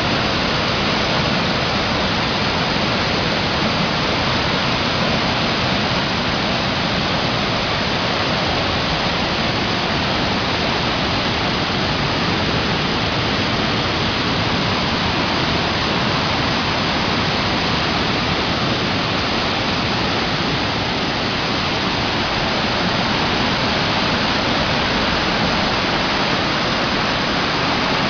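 Cascading stream in flood, swollen by tropical-storm rain: a loud, steady rush of white water.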